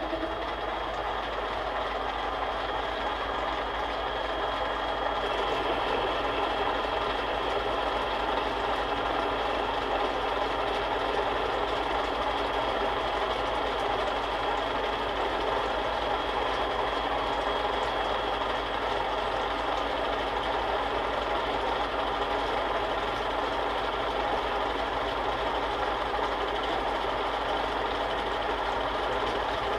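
Small benchtop metal lathe running steadily under power, turning down the threaded end of an allthread rod with light cutting passes.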